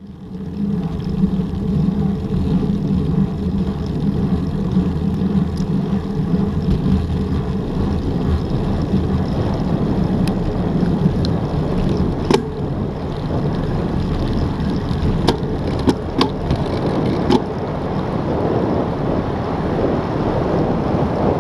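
Wind rushing over a bicycle-mounted action camera's microphone, with tyre and road noise, getting stronger and brighter as the bike gathers speed downhill. A handful of sharp clicks or knocks come in the second half.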